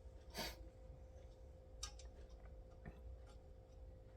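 Near silence with a few faint, scattered clicks and light taps over a faint steady hum, typical of small parts being handled on a workbench.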